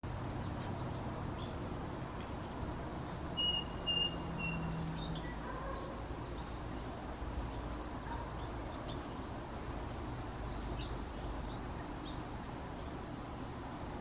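Outdoor natural ambience: insects trilling steadily, with several short bird chirps and whistles in the first five seconds.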